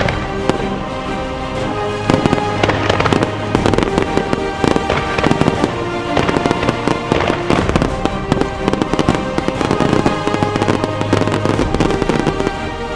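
Aerial fireworks shells bursting and crackling, the bangs coming thick and fast from about two seconds in, over music with sustained tones.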